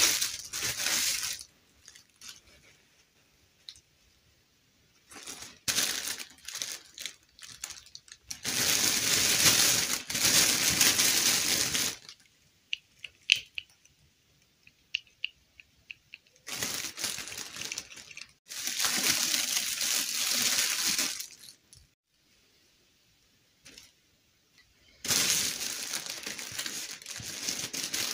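Clear plastic bag crinkling and rustling as it is handled, in several spells of a few seconds each, with quieter crackles and small clicks between.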